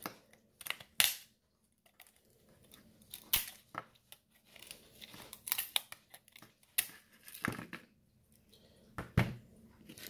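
Tin snips cutting through a car door chime module's printed circuit board, a series of short, sharp crunching snaps spread over several seconds as the blades bite across the board.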